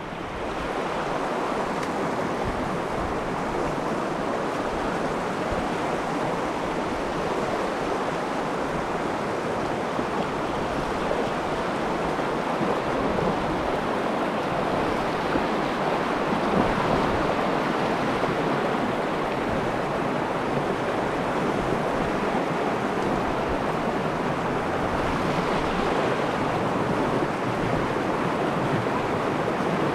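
Steady rush of a shallow, fast-flowing river running over rocky riffles, close to the microphone.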